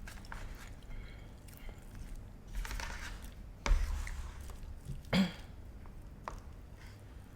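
Close-miked eating: chewing and mouth sounds with scattered light clicks, and a sharp knock near the middle, likely a utensil or food container.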